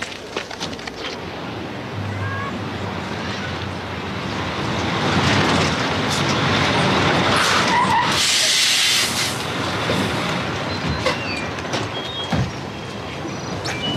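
Mack semi-truck tractor driving up and pulling to a stop with its diesel engine running; about 8 seconds in a loud air-brake hiss lasts over a second. A few knocks follow near the end.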